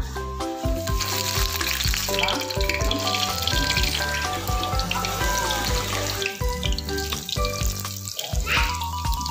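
Food sizzling as it fries in hot oil, under background music with a steady beat.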